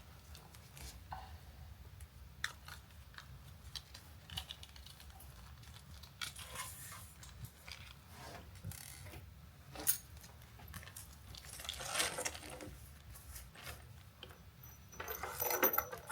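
Small metal parts of a type N coax connector and hand tools being handled on a bench: scattered light clicks and clinks with short bursts of fiddling, and one sharper click about ten seconds in.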